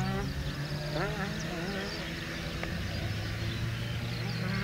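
Twin electric motors and propellers of an FMS P-38 Lightning RC model plane in flight overhead, a steady buzzing whine whose pitch wavers about a second in.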